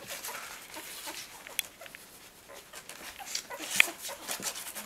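A litter of young puppies, eyes not yet open, nursing on their mother and making faint little squeaks and whimpers as they jostle for a teat. A brief, louder sharp sound comes nearly four seconds in.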